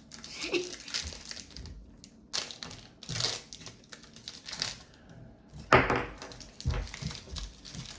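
Trading cards and their foil pack wrapper being handled: irregular crinkling, rustling and clicking of cards sliding over one another, with one louder bump a little before six seconds in.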